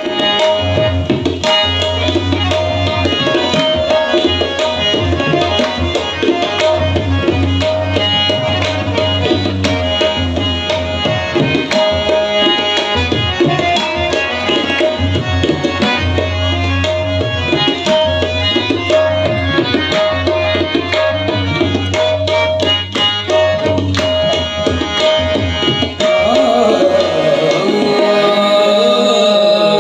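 Live qawwali ensemble playing: harmoniums hold steady notes over a tabla rhythm. About 26 seconds in the sound opens up and voices start singing.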